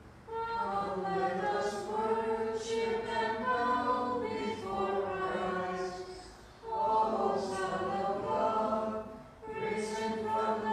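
Byzantine liturgical chant sung without instruments. It comes in three long phrases, with short breaks about six and a half and nine seconds in.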